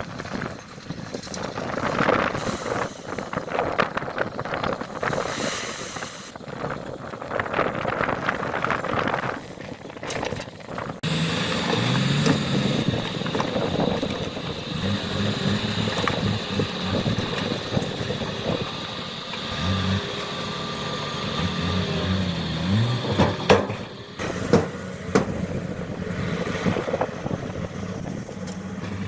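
Diesel engines of heavy earthmoving machinery (dump truck and bulldozer) working, with a noisy, crackling stretch that gives way abruptly, about a third of the way in, to a steadier engine hum whose pitch rises and falls, and a few sharp knocks near the end.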